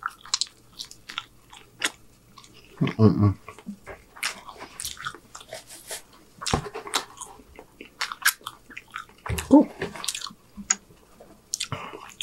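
Close-up chewing and biting of syrup-dipped French toast, with many short wet mouth clicks. Two brief low hum-like voice sounds come about three seconds in and again near ten seconds.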